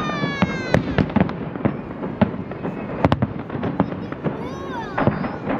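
Fireworks salute bursting overhead: a quick, irregular run of sharp bangs and cracks, with voices among the onlookers.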